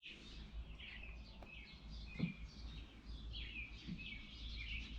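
Several small birds chirping and singing, a busy run of short, quick, mostly falling chirps, over a low steady rumble.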